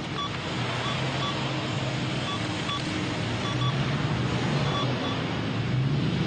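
Mobile phone keypad beeping as its keys are pressed: a dozen short beeps at uneven intervals, some in quick pairs. Street traffic noise runs underneath.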